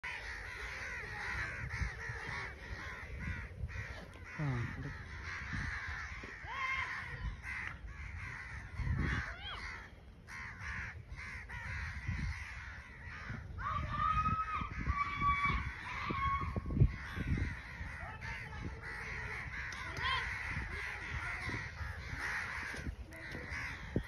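A large flock of crows cawing continuously, many harsh calls overlapping. A few low thumps break in, the sharpest about two-thirds of the way through.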